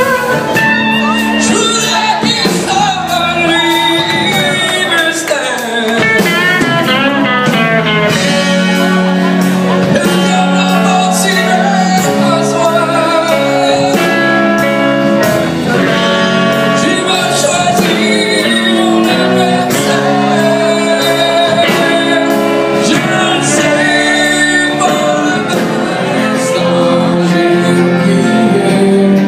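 Live band playing a song: a man sings into a microphone over strummed acoustic guitar, electric guitar and bass.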